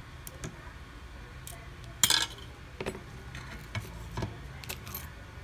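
Small metal repair tools and parts clicking and clinking during smartphone disassembly: a short clattering rattle about two seconds in, then a handful of lighter, separate clicks.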